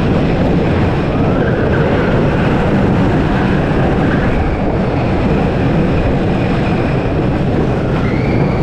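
Wooden roller coaster train running at speed on its wooden track, heard from the front car as a steady, loud rumble.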